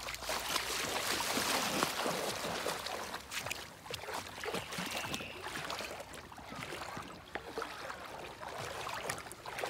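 A child wading through shallow river water, legs sloshing and splashing with each step; loudest over the first few seconds, then softer.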